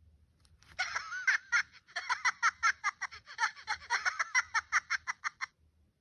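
High-pitched Minion-style cartoon laughter: a short wavering squeal, then a fast run of giggles at about five a second that stops suddenly near the end.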